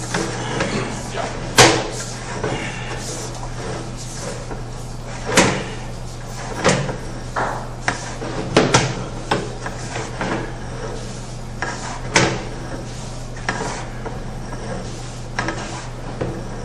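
Sewer inspection camera's push cable being pulled back out of the drain line, with irregular clacks and knocks over a steady low hum.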